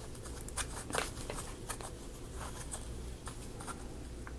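Scattered light clicks and taps of laser-cut plywood model parts being handled and fitted together, with a gear being pushed onto its peg.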